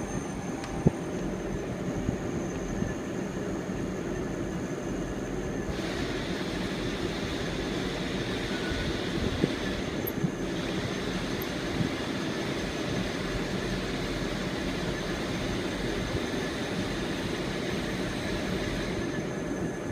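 CNC milling machine running as it mills the rib grooves into a rebar rolling-mill roll: a steady mechanical noise, with a higher hiss joining about six seconds in and dropping away near the end.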